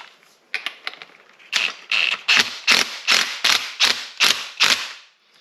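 A threaded aluminium part of a dirt bike fork being run in with a hand tool: about ten quick, even clicking, rasping strokes, roughly two and a half a second, after a few faint clicks.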